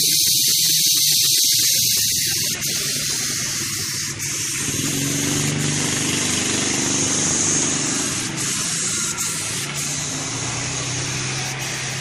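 Air spray gun hissing steadily as it sprays paint, with a few short breaks. About five seconds in, a low steady hum joins under the hiss: a homemade air compressor built from two used refrigerator compressors running.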